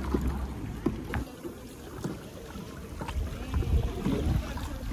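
Kayak paddle strokes splashing in calm, shallow water, with a few light knocks in the first second or so.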